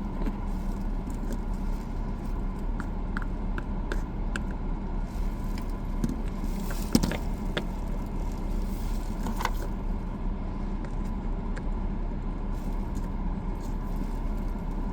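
Steady low hum of a car cabin with the engine idling, with scattered small clicks and taps of plastic toy figures and packaging being handled, the loudest about seven seconds in.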